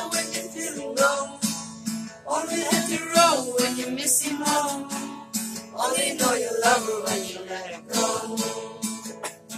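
Acoustic guitar strummed in a steady rhythm, with a male voice singing over it in two phrases.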